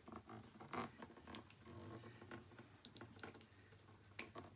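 Faint, irregular clicks and taps of two needle-nose pliers gripping and bending a thin metal rod into a Z-bend, with the sharpest click near the end.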